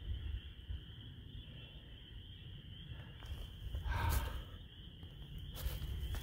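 Frogs chorusing in the distance, a steady high-pitched trill, with wind rumbling on the microphone and a brief rustle about four seconds in.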